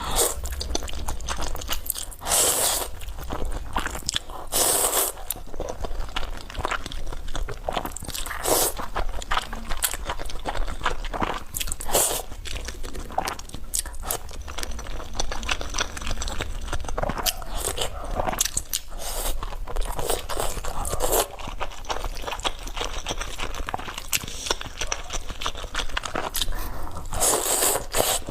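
Close-miked eating: a person biting and chewing food, with crunching and many short wet chewing clicks throughout.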